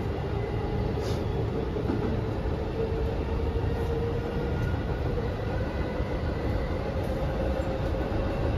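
Interior running sound of a JR West 207 series commuter train car: steady wheel-and-rail rumble with a faint motor whine slowly rising in pitch as the train gathers speed, and a single click about a second in.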